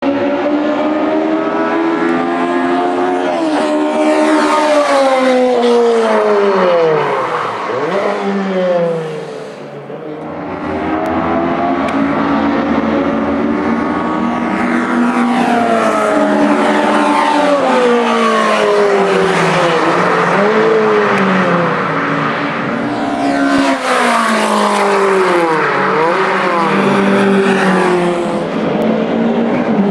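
Racing cars passing one after another at speed, each engine note rising and then falling in pitch as it goes by, with a short lull about ten seconds in.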